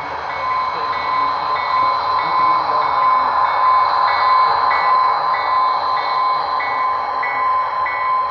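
Model diesel locomotive and boxcars rolling past on layout track: a steady whine with a rolling rumble, loudest about four seconds in as the locomotive goes by. A faint high ping repeats about twice a second throughout.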